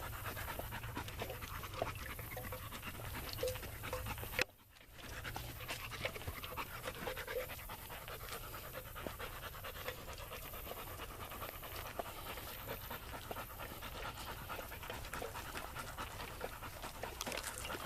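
A dog panting steadily and rapidly close by, with a brief dropout about four and a half seconds in.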